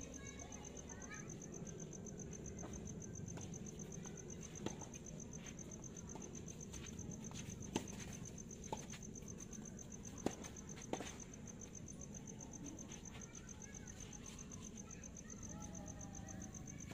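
Tennis ball struck by rackets in a rally, five sharp pops spread between about five and eleven seconds in. Behind them a steady high pulsing trill of insects, typical of crickets, runs throughout.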